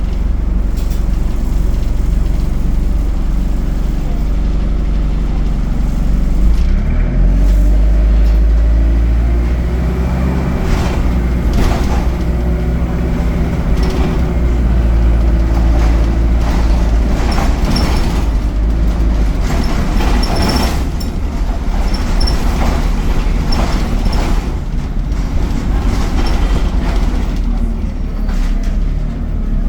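Alexander Dennis Enviro200 bus with an Allison automatic gearbox driving: the engine note rises about seven seconds in as it pulls away and eases back later, with repeated knocks and rattles from the bus while it runs.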